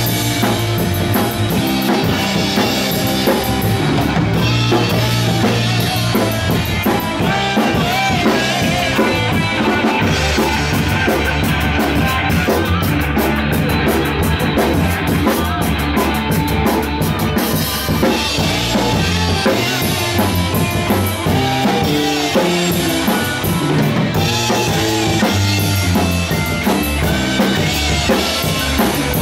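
Heavy metal band playing together at a steady, loud level: electric guitars and electric bass through small amplifiers over a drum kit with bass drum, snare and cymbals.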